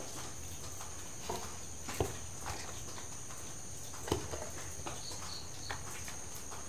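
A handful of soft, irregular knocks and scrapes of a utensil as thick cooked rice-flour dough is scooped out of the pan and dropped onto a banana leaf. A steady faint high hiss sits underneath.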